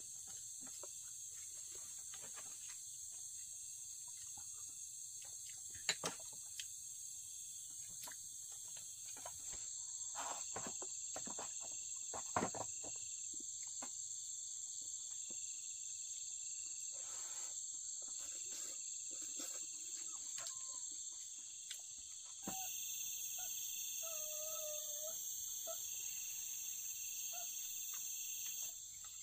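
Night insects, crickets, chirring steadily in a high, even drone, growing louder about a third of the way in and again near the end. A few sharp light clicks of chopsticks against a metal pot and bowls stand out above it.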